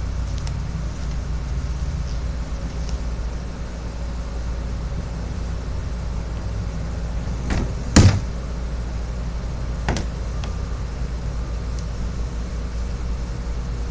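Kayak trolling-motor lift being worked on its stand: a loud metallic clunk about eight seconds in, with a lighter knock just before it and another about two seconds later, over a steady low rumble.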